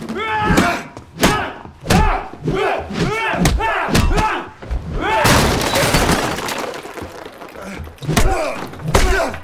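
Movie fight sound effects: men grunting and yelling with effort between heavy punches, thuds and crashes, with a longer crash of breaking, scattering objects about halfway through.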